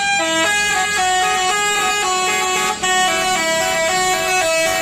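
Telolet horn on an Indonesian coach bus: a multi-tone musical horn playing a quick tune of stepped notes, each held a fraction of a second, with no break.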